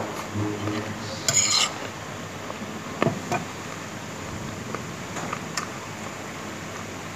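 A spoon scraping and clinking against a plate while eating: a short rasping scrape about a second and a half in, a sharper clink about three seconds in, then a few light taps.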